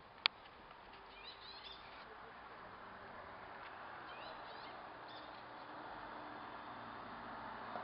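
A single sharp click shortly after the start, then faint background noise that slowly builds, with a few short high chirps scattered through it.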